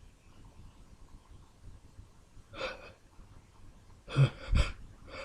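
A man's sharp, gasping intakes of breath as a sneeze builds: a faint catch about two and a half seconds in, then two short, loud gasps about a second and a half later.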